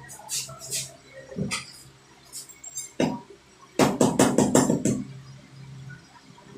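Metal tools and injector parts clinking and knocking on a workbench during diesel injector nozzle repair. There are scattered single knocks, then a quick run of about six taps around four seconds in.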